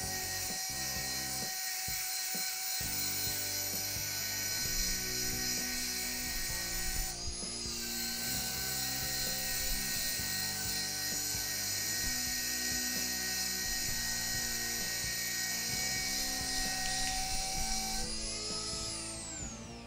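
Dremel rotary tool running at top speed (about 25,000 rpm) with an EZ471 abrasive brush wheel scouring paint off a metal profile: a steady high whine with scratching. It briefly drops out about seven seconds in and comes back up, and near the end winds down with a falling whine as it is switched off.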